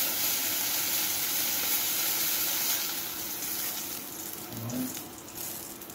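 Chicken breast frying in melted butter in a pan, a steady sizzle that fades noticeably about three seconds in.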